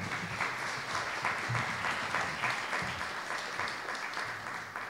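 Audience applauding steadily, a dense patter of many hands clapping that begins to die away near the end.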